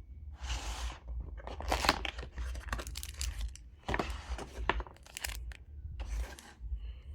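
Packaging being torn open and crinkled by hand in a run of short rips and rustles, over a steady low hum.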